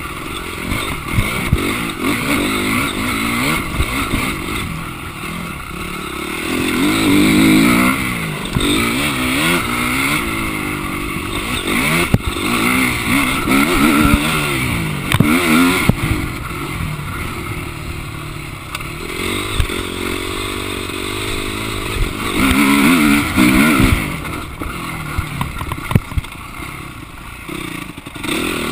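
Motocross dirt bike engine revving up and falling off again and again as it is ridden around a dirt track, with a few sharp knocks.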